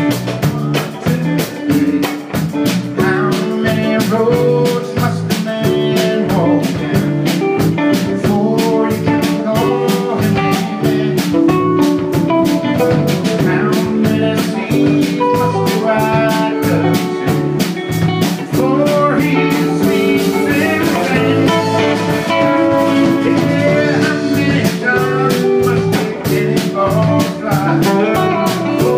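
Live band playing a rock jam on electric guitars, electric bass, keyboard and drum kit, over a steady beat.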